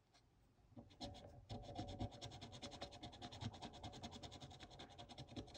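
A scratch-off tool rubbing at a holographic scratch-off circle on a paper savings-challenge sheet, in rapid back-and-forth scratching strokes that start about a second in, wearing the coating off to reveal the number beneath.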